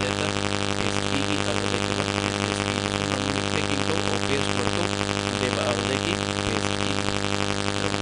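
Steady electrical hum with a buzzy stack of overtones and a constant hiss, unchanging throughout.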